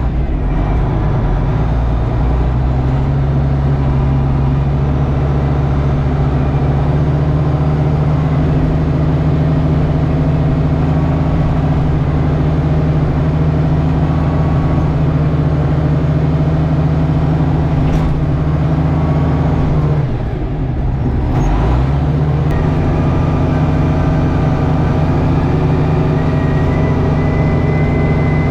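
Tractor engine running steadily under load while plowing compacted snow and ice; about twenty seconds in its revs briefly dip and then come back up.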